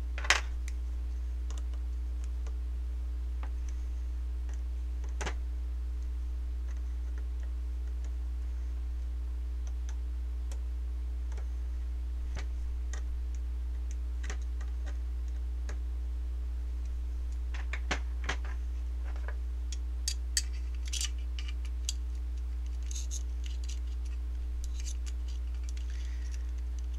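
Sparse small clicks and taps of a folding Torx key set and a metal airsoft gearbox shell being handled while the shell screws are driven, with a sharp click right at the start and a run of clicks in the last third. A steady low hum lies under it all.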